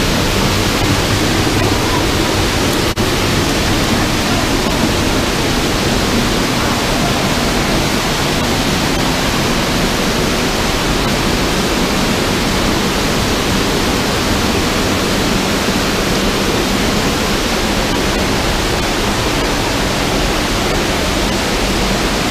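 Waterfall heard up close, from right beside its falling water: a loud, steady rush of water pouring onto rock.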